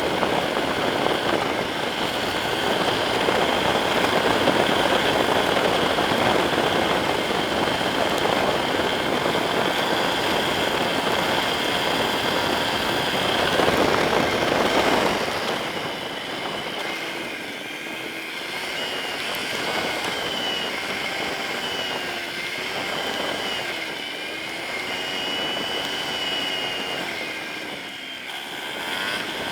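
Yamaha Serow 250's single-cylinder engine running under way, mixed with a heavy rush of wind noise. About halfway through the rush drops away, and the engine note rises and falls as the bike slows and speeds up.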